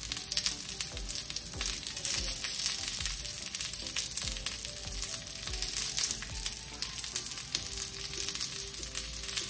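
Beef kababs and fries sizzling on a heated sizzler grill plate, a steady hiss with light crackling as the kababs are set down on it.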